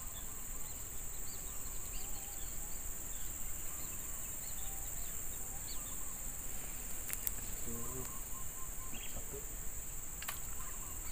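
Steady high-pitched drone of insects, with faint short chirps above it. Two sharp clicks stand out, about seven and ten seconds in.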